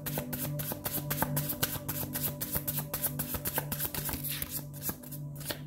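A deck of tarot-style reading cards being shuffled by hand: a quick run of soft card clicks and slaps that thins out near the end.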